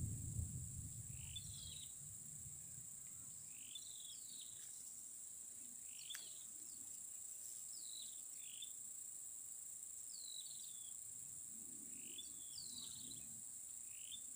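Faint natural ambience: insects trilling in a steady high drone, with a bird repeating short chirps every second or so.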